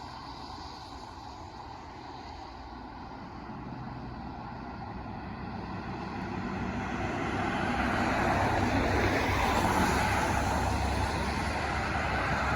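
Whelen WPS-2740 electronic outdoor warning siren sounding its dual tone at a steady pitch, swelling much louder about two-thirds of the way through. A low rumble of wind on the microphone lies underneath.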